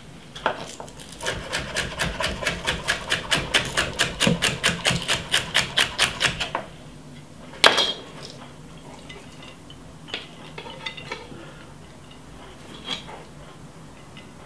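Chef's knife rapidly chopping spring onion on a wooden cutting board, an even run of about five cuts a second lasting some six seconds. One sharp knock follows near the middle, then a few faint clicks.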